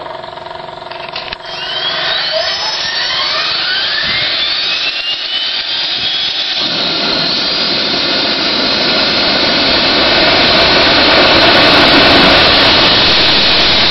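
PBS TJ-100 turbojet starting: several whines rise steeply in pitch as it spools up, then about six and a half seconds in a loud rushing noise joins in and builds, settling into a steady run near the end.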